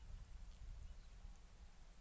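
Near silence: a faint, uneven low rumble on the microphone with a steady faint hiss.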